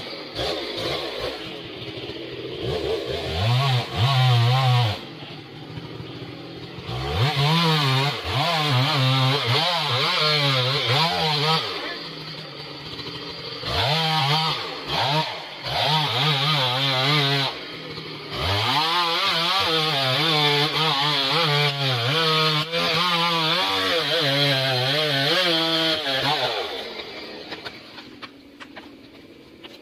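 Two-stroke chainsaw cutting into the base of a huge tree trunk. The engine revs up and bogs down under load through several long cuts with brief drops in between, and falls away near the end.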